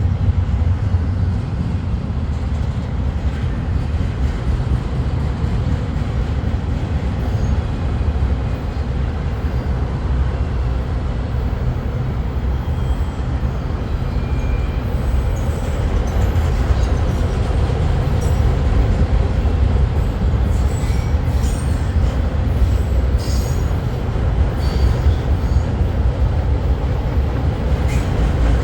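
Intermodal freight train cars rolling past: a steady low rumble of steel wheels on rail, with scattered clicks and brief squeaks in the later part.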